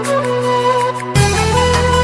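Background music: a sustained melody line that steps between notes, joined by a heavy bass part about a second in.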